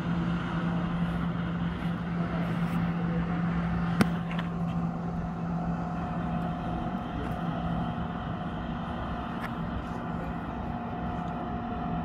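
Motorboat engine droning steadily across the water as the boat speeds by, with one sharp click about four seconds in.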